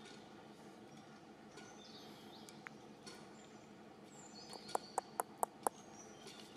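Forest ambience: a steady background hiss with a few short, high bird chirps. About four and a half seconds in, five sharp clicks come in quick succession, about four a second.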